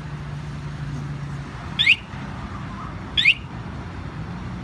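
Aftermarket alarm siren on a Yamaha LC135 motorcycle, worked by its remote, giving two short, loud chirps that fall in pitch, about a second and a half apart.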